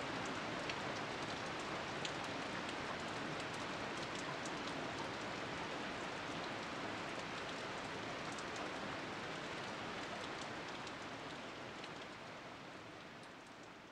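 Steady rush of water, with fine patter-like ticks through it, fading out over the last few seconds.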